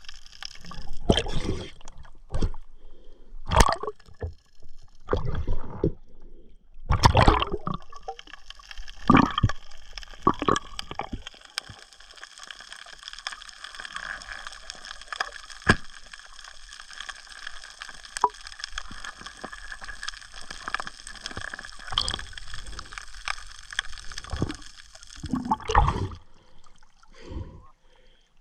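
Underwater water sounds around the camera: irregular bursts of gurgling and sloshing in the first several seconds, then a steady hiss from about twelve seconds in, and another loud gurgling burst near the end.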